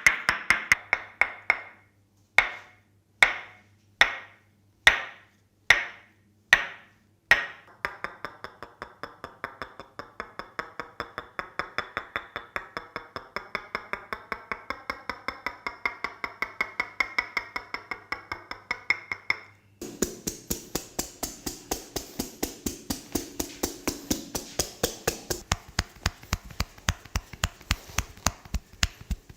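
Hands striking skin in a percussive barber massage. A quick run of taps gives way to about eight separate sharp slaps, each under a second apart, then a long, even run of fast taps at about five a second. The tone of the taps changes abruptly about two-thirds of the way through.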